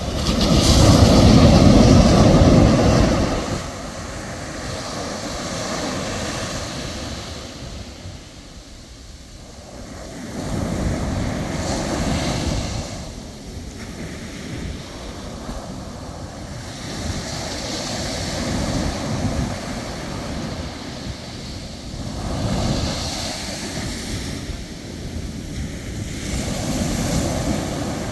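Ocean surf: waves breaking and washing up the shore in repeated surges, the biggest one in the first few seconds, then smaller swells every five or six seconds.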